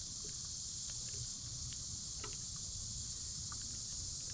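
Steady chorus of insects at dusk: an even, high continuous trilling hiss, with a low rumble underneath and a few faint ticks.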